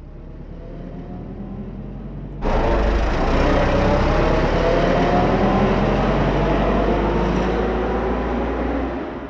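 Engine-like rumble with a slowly rising whine, jumping suddenly to a loud rushing noise about two and a half seconds in, holding steady, then dropping back just before the end.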